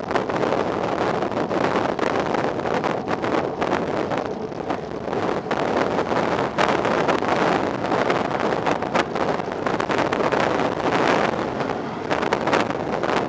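Steady wind buffeting on the microphone of a bicycle-mounted camera at riding speed, mixed with tyre and engine noise from passing road traffic; a car overtakes close by near the end.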